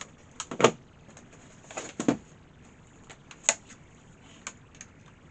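Scattered clicks and knocks of a laptop being handled, with the louder knocks about half a second, two seconds and three and a half seconds in.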